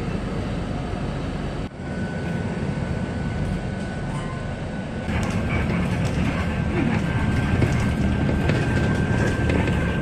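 Cabin noise of a moving city bus: steady engine and road rumble, a little louder from about five seconds in, with a thin steady high whine from about two seconds in.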